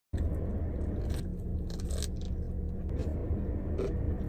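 Steady low rumble of a car's engine heard inside the cabin, with scattered short crackles and rustles over it, the loudest cluster about a second or two in.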